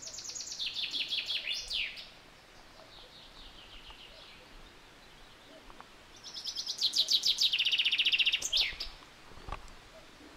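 Small songbirds singing in a forest. Two loud song phrases, one at the start and one about six seconds in, are each a fast run of high notes dropping in pitch and ending in a quick flourish. A fainter song comes between them.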